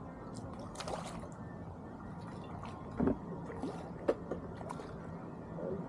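Water lapping and trickling around a small fishing boat, with a few short, sharp knocks.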